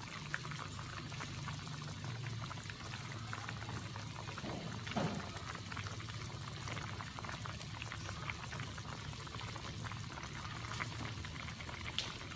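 Sayur lodeh simmering in an aluminium wok on a gas stove: a steady bubbling with many small pops, over a low steady hum.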